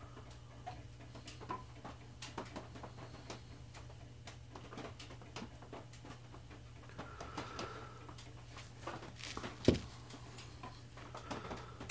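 Faint, scattered light clicks and taps of a metal pick and a brass saxophone key being handled, over a steady low hum, with one louder click near the end.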